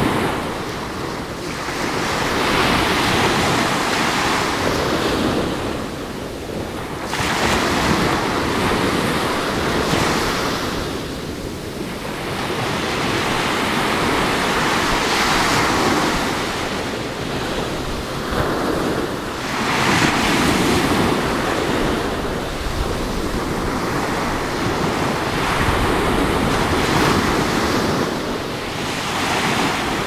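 Small ocean waves breaking and washing up the sand, the surf swelling and easing every few seconds, with wind buffeting the microphone.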